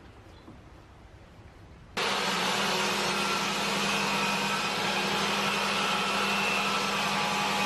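Benchtop table saw running steadily with a high motor-and-blade whine. It starts suddenly about two seconds in, after a faint quiet stretch.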